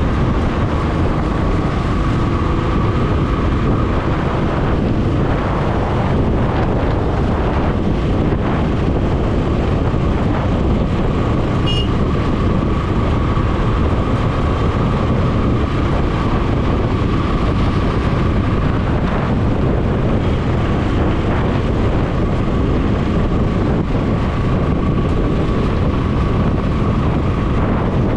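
Wind buffeting the microphone over a motorcycle's engine, which runs steadily while riding along a road. A faint steady high tone sits over the rumble throughout.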